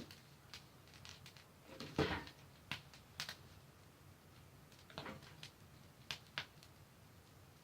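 Campfire crackling: irregular sharp pops and snaps from burning wood, a few seconds apart, the loudest about two seconds in, over a faint steady background.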